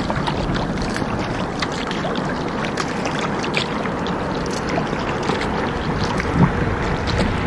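Kayak on the water: small irregular splashes and drips from paddling over steady water noise, with wind rumbling on the microphone.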